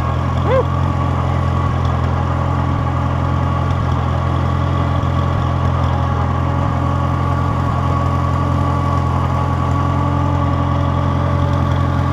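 Engine of a small old red tractor running at a steady speed as it is driven along, heard close up from the tractor itself.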